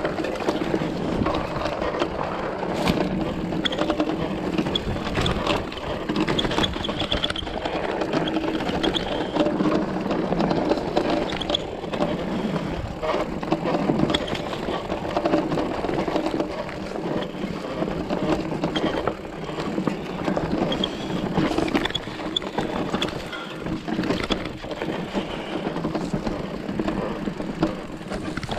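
Specialized Turbo Levo electric mountain bike rolling down a rocky dirt singletrack: a continuous rattle of tyres over stones and soil with many small knocks from the bike's frame and chain.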